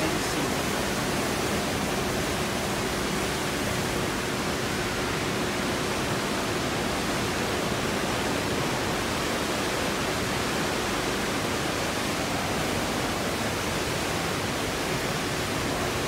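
Steady rushing noise of water moving through the aquarium tank's circulation system, even in level throughout, with a faint low hum underneath.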